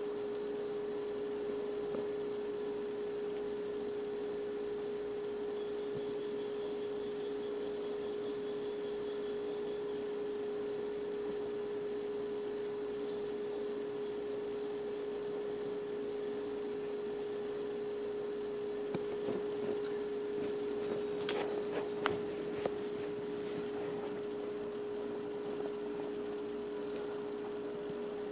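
A steady electrical or mechanical hum on one unchanging pitch, with a few faint clicks about two-thirds of the way through.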